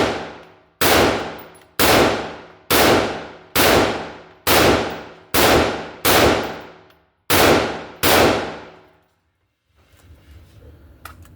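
About nine .223/5.56 rifle shots from handloaded rounds charged with H335 powder, fired at roughly one a second with a slightly longer gap before the last two. Each shot leaves a long echoing tail.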